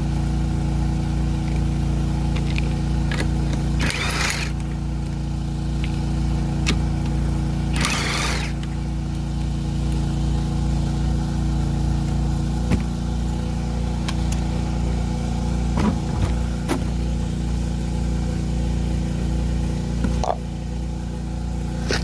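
A steady engine-like hum, with two short noisy bursts about four and eight seconds in and a few sharp clicks and knocks later on: tool and jack noises from raising one side of the vehicle and removing a front wheel.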